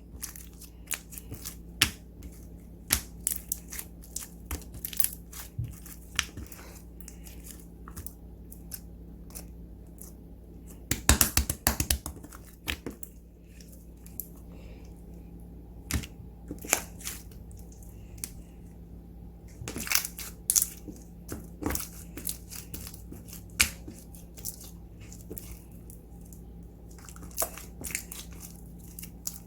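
Slime being kneaded, stretched and folded by hand: irregular clicks and pops throughout, with a dense run of crackling about eleven seconds in and another around twenty seconds in.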